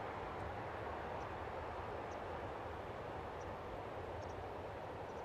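Boeing 737-800's CFM56-7B jet engines running at low power as the airliner rolls slowly and turns off after landing: a steady rush of jet noise.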